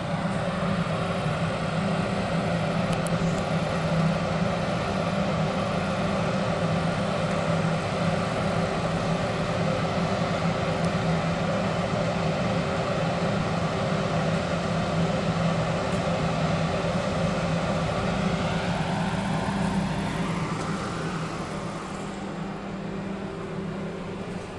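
Steady mechanical engine drone with a strong low hum; about twenty seconds in its pitch bends and it fades away.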